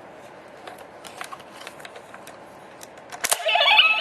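Small plastic clicks of a Gosei card being handled and slotted into a Tensouder toy morpher. Near the end a sharp click sets off the toy's loud electronic card sound effect, beeping tones and a synthetic voice through its small speaker.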